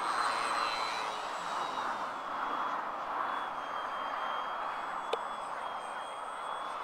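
Radio-controlled Edge aerobatic model plane flying overhead, its motor and propeller giving a rushing sound with a thin high whine that shifts slightly in pitch. A single sharp click about five seconds in.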